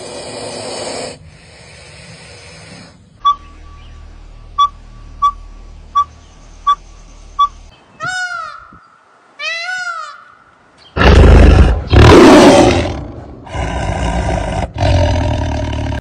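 Several animal calls one after another: six short, evenly spaced peeps, then two calls that rise and fall in pitch, then loud roar-like calls in the last third.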